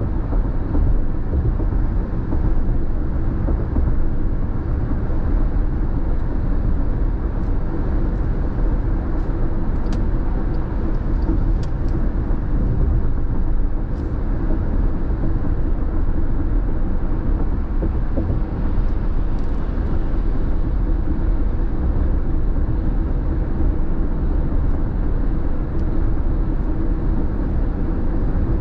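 Steady road noise inside a car cruising at freeway speed: tyre and engine noise heard through the cabin, with a few faint clicks.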